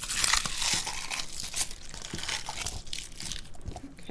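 Slime being squished and pressed by hand, with many small crackles and crunches from a crunchy perlite-filled slime; the crackling is densest in the first second or so and thins out after.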